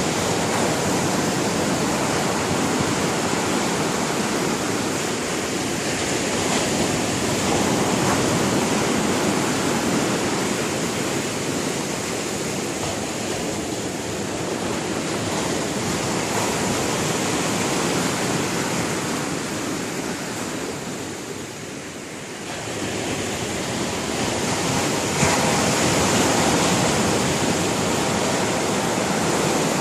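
Sea surf: waves breaking and washing on the shore in a continuous rush that swells and eases. It drops off at about two-thirds of the way through, then a wave crashes in sharply a few seconds later.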